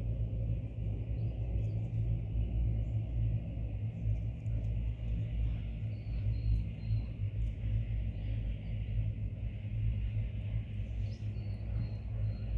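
Steady low rumble of outdoor background noise, with faint short, high bird chirps in small runs about a second in, around six seconds, and again near eleven seconds.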